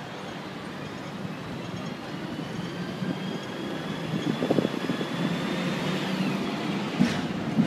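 Hong Kong double-decker tram running along its street track: a steady rumble of wheels on rail, growing louder, with a faint whine that rises in pitch and drops away about six seconds in, and a few knocks from the wheels over the track.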